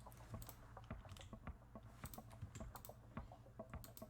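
Faint, irregular clicking and tapping of a computer keyboard as the software is operated.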